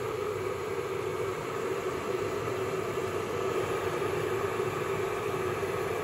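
Stainless steel Russell Hobbs electric kettle heating water: a steady rushing noise.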